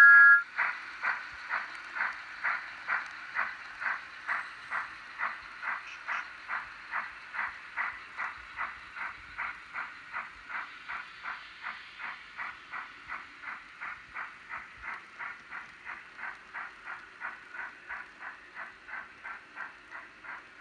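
Steam-locomotive chuffing sound effect from an HO scale Thomas the Tank Engine model's LokSound decoder: an even beat of about two chuffs a second over a faint hiss, slowly fading. A short two-note whistle cuts off just as it begins.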